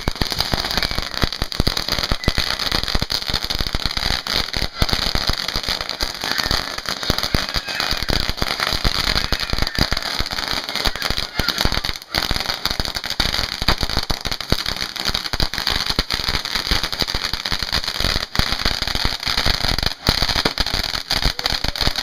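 A 5,000-count string of firecrackers going off on the ground: a rapid, unbroken run of sharp pops that keeps up without a pause.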